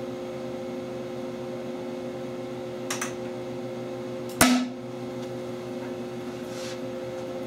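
A single sharp bang about four and a half seconds in: hydroxy (HHO) gas, with no added air, igniting in a PVC combustion tube and driving a piston out. A short click comes about a second and a half before it, over a steady electrical hum from the bench equipment.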